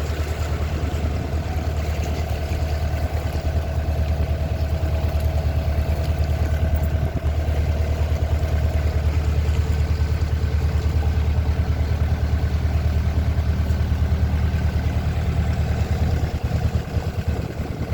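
Boat engine running steadily, a continuous low drone with a rapid, even pulse.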